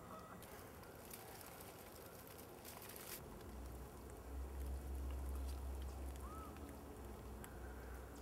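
Faint woodland ambience: crackly rustling for the first few seconds, then a low rumble on the microphone, with one short bird chirp partway through.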